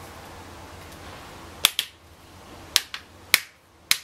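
Plastic screen bezel clips on an HP ProBook 650 G1 laptop lid snapping into place as a finger is run along the edge: about six sharp clicks, some in quick pairs, starting about a second and a half in.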